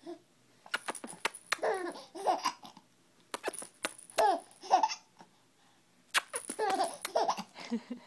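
Baby laughing hard, in three bouts of giggling with short pauses between them.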